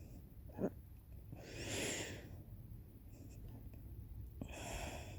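A person hiccups once, a short sharp catch about half a second in, then takes two long, noisy breaths, the second near the end.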